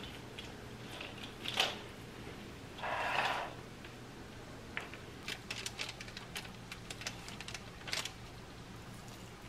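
Light clicks and taps of small objects being handled, with a sharper knock about a second and a half in and a brief rustle around three seconds in, over a faint steady hum.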